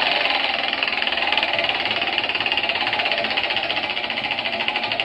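Spinning prize wheel ticking rapidly as its pointer clicks past the segments, the ticks slowing a little as the wheel winds down.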